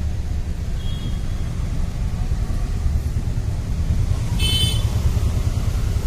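Steady low rumble, with a short high-pitched squeak about four and a half seconds in.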